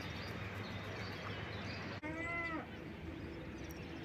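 A sheep bleats once, briefly, about two seconds in, over a steady low background noise.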